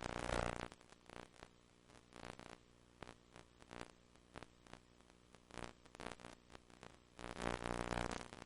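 VHS HiFi audio buzz: a steady low buzz made of many evenly spaced tones, broken by frequent short crackles and dropouts, the hallmark of a slightly damaged tape. It swells louder at the start and again about seven seconds in for around a second.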